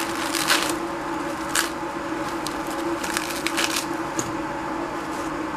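Crisp lettuce leaves being torn and crunched by hand, with a few short crackling snaps, over a steady low hum.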